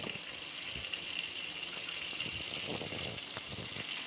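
Melted butter and oil sizzling steadily in a pan, with whole spices such as a bay leaf and dried red chilli frying in it.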